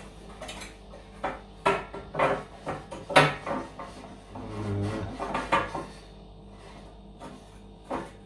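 Knocks and clatter of objects being handled and set down: a string of sharp knocks over a few seconds, with a brief low hum in the middle.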